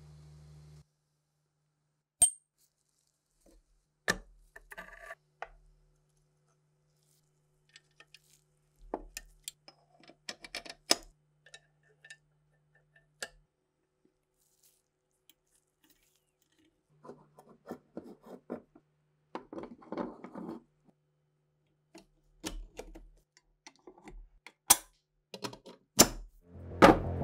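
Scattered metal clicks, taps and clinks of steel STEN submachine gun parts being handled and fitted together, with quiet gaps between. A sharp click about two seconds in is the loudest, and a few more sharp clicks come near the end as the magazine housing goes onto the gun body.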